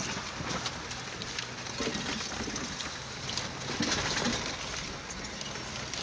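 Road and tyre noise inside a moving car's cabin as it drives over a railroad crossing, with scattered knocks and rattles.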